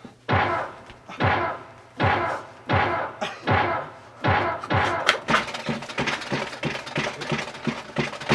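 A teenage boy's screaming freak-out: loud yells that break off one after another, about one every 0.8 s, then a fast, frantic flurry of hits and yelling up close to the webcam microphone.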